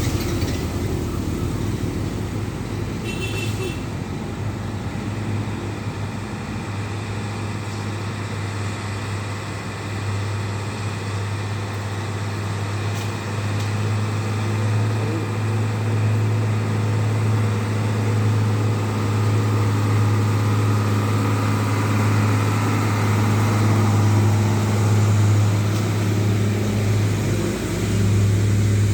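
Heavy multi-axle truck's diesel engine labouring up a steep climb, a steady low drone that slowly grows louder, dips briefly near the end, then picks up again.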